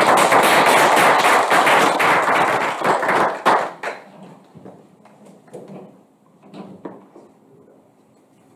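Audience applauding, a dense patter of claps that dies away about four seconds in, followed by faint scattered knocks and rustles.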